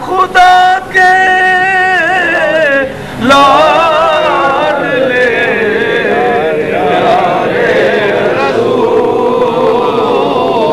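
A man chanting a devotional recitation in long, wavering held notes, then, after a short break about three seconds in, a crowd of men chanting together.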